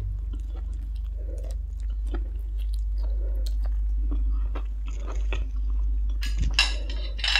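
A person chewing a mouthful of stir-fried instant noodles close to a clip-on microphone, with many small wet clicks and smacks over a steady low hum. A louder hissing noise comes near the end.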